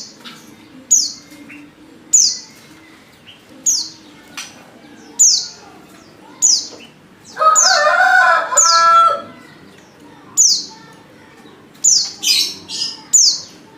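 Female white-eye (pleci) lure call: a short, high note sliding downward, repeated about every second and a half. About halfway through, a louder, lower bird call lasting some two seconds cuts in, and near the end another bird adds a quick run of chirps.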